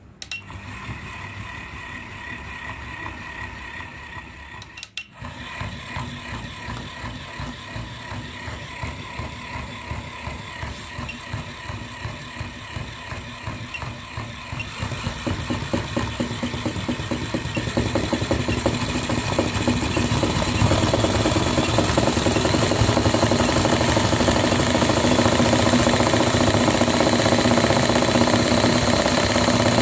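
A small electric toy motor and its plastic gearbox running with a fast, even chatter. It cuts out for a moment about five seconds in, then runs on, growing louder from about fifteen seconds and staying loud.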